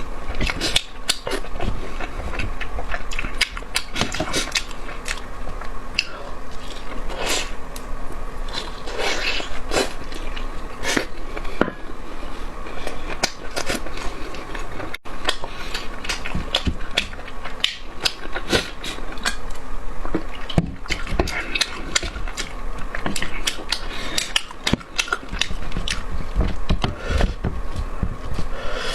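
A person eating close to the microphone: irregular wet chewing and lip-smacking, with quick clicks, and a faint steady hum underneath.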